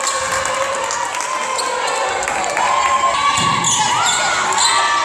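Volleyball rally in an echoing gym: sharp hits of the ball mixed with players' drawn-out shouts and calls.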